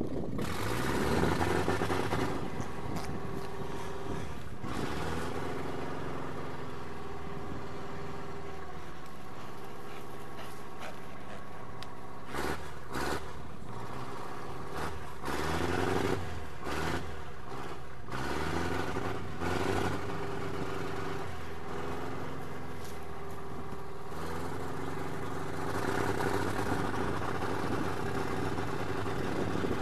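An engine runs steadily, its pitch rising and falling again and again, with a few short knocks partway through.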